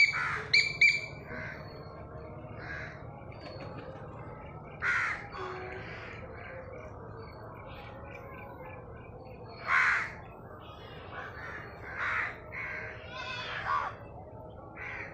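House crows cawing: harsh caws about five seconds in, again near ten seconds, then several in quick succession near the end. A few short, sharp, high-pitched notes sound at the very start.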